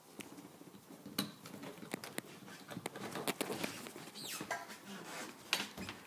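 Clicks, knocks and rubbing as a carpeted deck hatch on a 1997 Skeeter boat is pulled open by its flush ring, with a short scrape about four seconds in.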